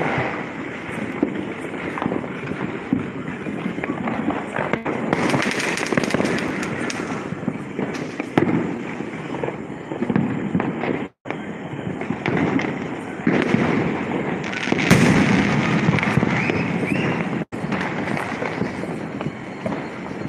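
Diwali firecrackers and fireworks going off across the neighbourhood without a break, a dense crackle of many bangs piling over each other, swelling louder about five seconds in and again about fifteen seconds in. The sound cuts out for an instant twice.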